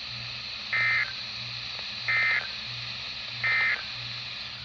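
Emergency Alert System end-of-message signal on NOAA Weather Radio, received on a scanner: three short bursts of warbling SAME data tones about a second and a half apart, marking the end of the warning broadcast. A low steady hum and hiss from the receiver lie underneath.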